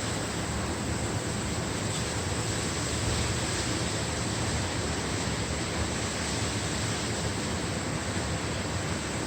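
Tropical-storm wind and heavy, wind-driven rain: a steady, even rush of noise with no let-up.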